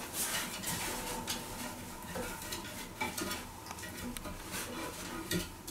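Raccoon climbing a wooden ladder frame: a run of short scratches, scrabbles and light taps of its claws and feet on the wooden rungs and boards.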